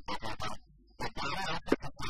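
A man talking, with a short pause about halfway through.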